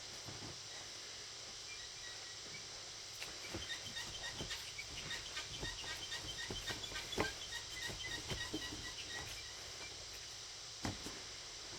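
Close-up eating sounds: chewing with a dense run of small wet clicks and smacks, starting about three seconds in and fading out near nine seconds. A single louder knock comes near the end.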